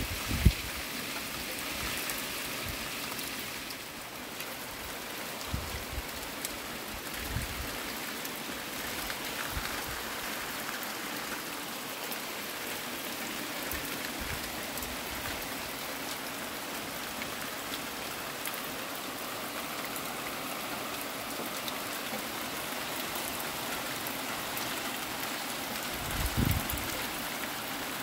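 Steady rain falling on garden leaves and patio, an even hiss throughout, with a few dull low thumps here and there.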